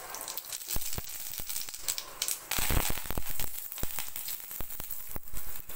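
Curry leaves frying in hot oil in a kadai: a steady sizzle dotted with sharp crackles and pops, with a denser burst of spattering about two and a half seconds in, as the leaves hit the oil.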